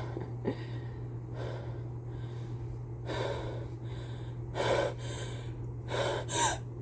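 A person with a cold taking a series of sharp, gasping in-breaths that grow louder toward the end: the build-up to a sneeze.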